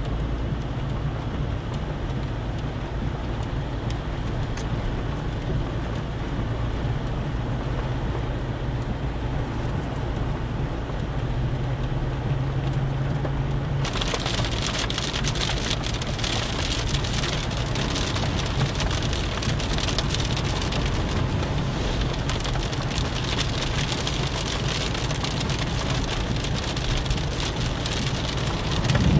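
Inside a moving car's cabin, a steady low engine and road hum. About halfway through, a dense pattering of rain on the car's roof and windscreen starts suddenly and keeps on.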